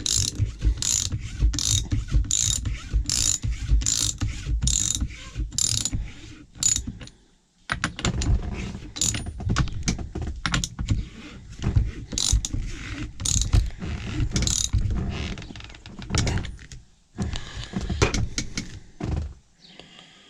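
Socket ratchet wrench clicking in repeated strokes as it tightens the steering-wheel retaining nut, about two strokes a second, with a short pause about seven seconds in. Scattered clatter of handling follows near the end.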